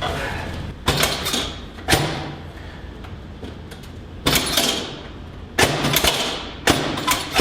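Chiropractic adjustments on a treatment table: five sharp thumps at uneven intervals, each followed by a brief clatter that fades.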